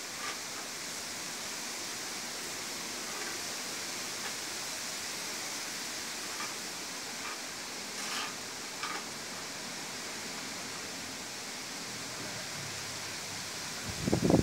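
Strong wind rushing through tree foliage as a steady hiss, with a few faint ticks. Near the end a gust buffets the microphone with a short, loud low rumble.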